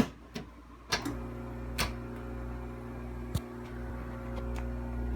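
A few sharp clicks, then about a second in a steady electrical hum with a low drone sets in: a KitchenAid Hobart KDI-18 dishwasher switched on and running its cycle, which the owner says takes in no water.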